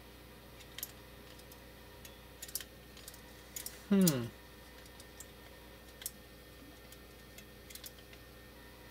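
Scattered light clicks and taps of the plastic housing and parts of a Siemens 3TB41 contactor being handled and fitted together. About four seconds in, a brief wordless hum from a man's voice, falling in pitch.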